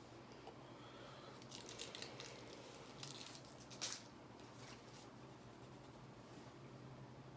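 Quiet room with a few short crinkling, clicking handling noises, in two clusters, the loudest near four seconds in.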